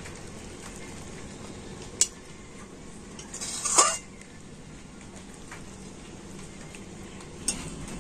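A metal spoon clinking and scraping against a stainless steel plate and pan as cooked food is served out: a sharp clink about two seconds in, a longer scrape just before halfway, and another clink near the end.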